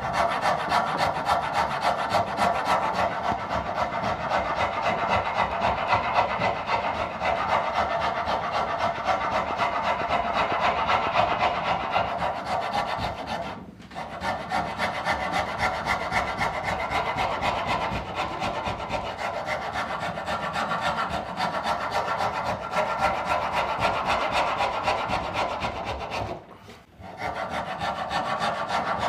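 Wood rasp worked in quick back-and-forth scraping strokes along the edge of a cambará table leg, chamfering it diagonally. The strokes pause briefly about halfway through and again near the end.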